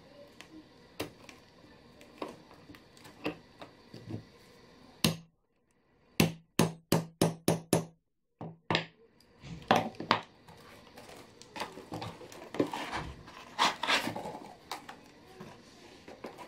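A hammer striking a metal setting tool held on a leather bag to set hardware. There is one sharp blow about five seconds in, then a quick run of about six blows, followed by scattered lighter knocks and handling of the leather.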